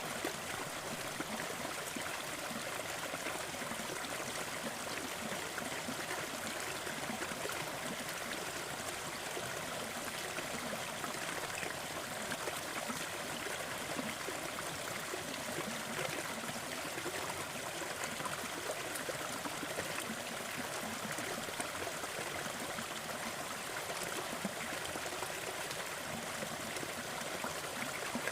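Gentle forest waterfall: water falling and splashing in a steady, unbroken rush with fine trickling and burbling.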